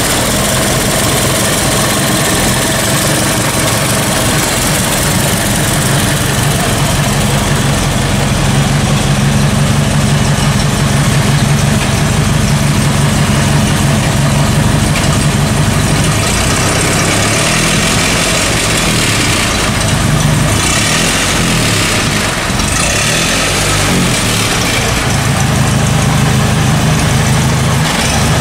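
1926 Ford Model T's original four-cylinder engine idling steadily.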